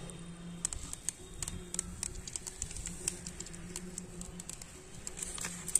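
Irregular small wet clicks and ticks of hands and a cloth gripping and pulling the slippery skin off a freshwater mud eel (kuche) on a banana leaf, over a faint low steady hum.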